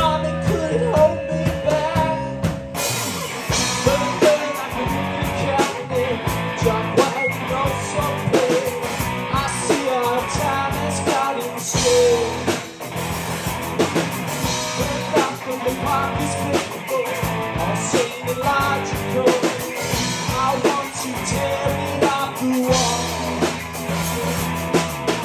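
Live rock band playing: electric guitars over a drum kit, with a man singing. About three seconds in the music changes abruptly, as the recording cuts to another song in the medley.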